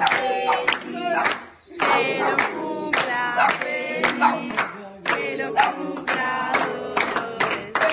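A group of voices singing together in short phrases, with a brief pause a little over a second in and another just before the five-second mark.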